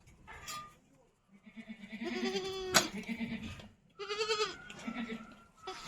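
Young goat kids bleating, a run of calls with a quavering pitch, one long and several shorter. A single sharp click cuts through about three seconds in.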